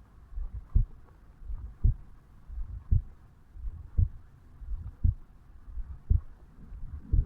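A man's heartbeat picked up over the mitral valve area of the chest at rest just after waking. It is slow and regular at about one beat a second, each beat a low double thump.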